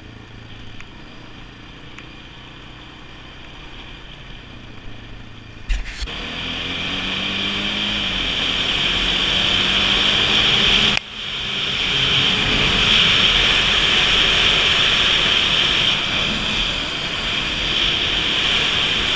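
An off-road vehicle's engine heard from the rider's own helmet: idling or cruising low at first, then after a knock about six seconds in it pulls away with rising revs and runs steadily at speed with a rushing noise that grows with speed. The noise dips briefly once, about eleven seconds in.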